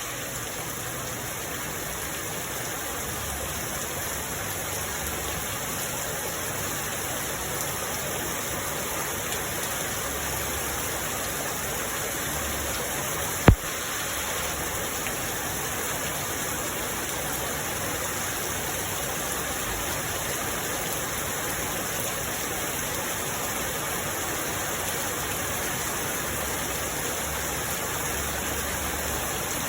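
Steady rain falling, an even unbroken hiss. One sharp click sounds about halfway through.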